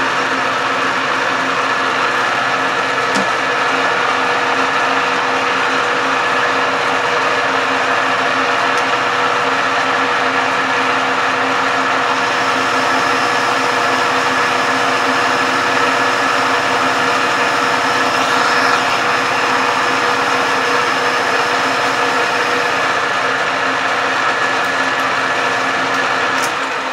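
Metal lathe running under cut, taking a final finishing pass on a turned workpiece: a steady motor-and-gear hum with a thin high whine for a stretch in the middle. Near the end it begins to spin down.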